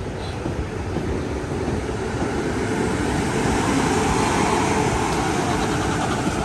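Class 450 electric multiple unit running past at close range, its rumble building to a peak about four seconds in and then easing.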